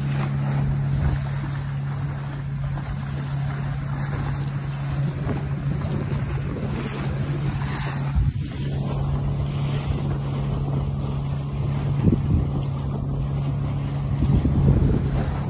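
Steady low drone of the towboat's diesel engine pushing the barge, over wind buffeting the microphone and the wash of water.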